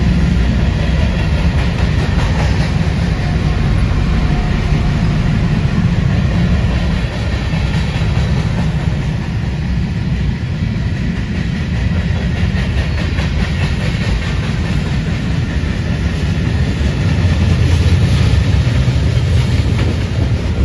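Freight train cars rolling past close by: a steady heavy rumble of steel wheels on the rails, with repeated clicks of wheels over rail joints. It grows louder near the end.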